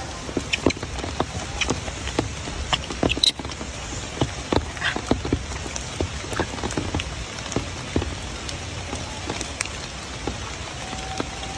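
Steady rain falling on leaves and ground, with scattered irregular drips and ticks.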